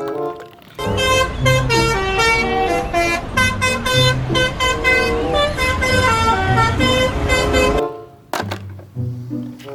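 Multi-tone 'telolet' bus horn playing a quick melody of changing notes, starting just under a second in and running for about seven seconds.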